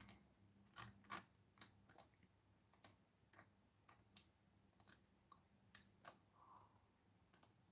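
Faint, scattered clicks from someone operating a computer, about a dozen spread unevenly through a near-silent room.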